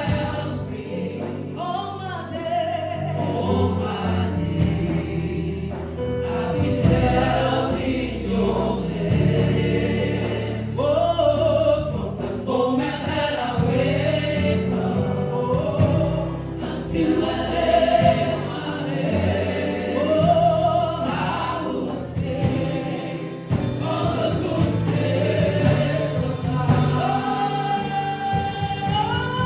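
Gospel worship song sung by a group of voices, with steady instrumental backing.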